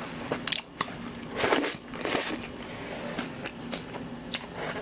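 Close-miked chewing of a mouthful of seasoned green vegetables, with crisp crunches and wet mouth clicks, and two louder breathy rushes about one and a half and two seconds in.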